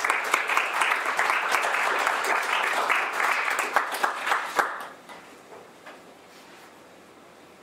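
Audience applauding, dense clapping that lasts about five seconds and then dies away.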